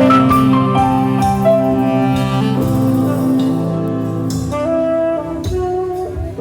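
Live band playing, with a saxophone carrying a slow melody of long held notes over keyboard, bass and drums.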